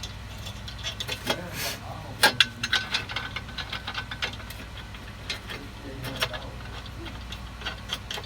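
Metal hand tools and hardware clicking and clinking in irregular taps while ball-joint bolts are fitted to a car's front suspension. The taps are busiest a second or two in, over a steady low hum.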